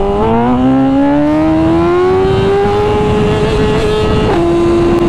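Superbike engine under hard acceleration for a power wheelie, its pitch climbing for about three seconds and levelling off, then dropping sharply about four seconds in as it shifts up a gear, over wind rush.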